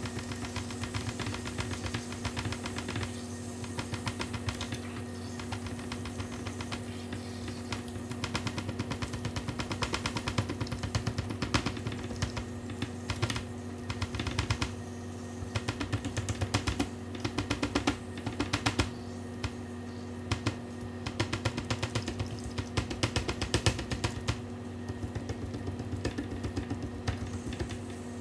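Rapid tapping clicks of forks stabbing the skin of a raw pork belly slab, the tines striking through to the metal sheet pan, in bursts with short pauses; the skin is being pricked all over before frying so it puffs up crisp. A steady low hum runs underneath.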